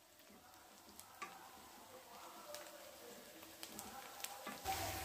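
Sliced onions sizzling faintly in oil in a nonstick kadai, stirred with a wooden spatula, with scattered scrapes and taps of the spatula against the pan. The sizzling grows louder.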